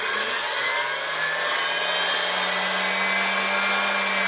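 Old Black and Decker valve-grinding machine's wheel-head electric motor running after being switched on. It comes up to speed in the first second or so, then runs steadily with a high whine. The bearing is one the owner calls tight but noisy.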